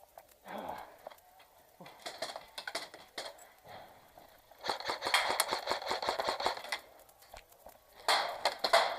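Airsoft guns firing in rapid bursts of clicking shots, three bursts in all, the longest about two seconds in the middle.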